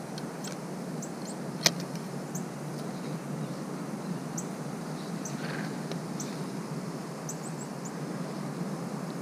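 Steady outdoor background noise with a low hum, faint short high chirps scattered through it, and one sharp click a little under two seconds in.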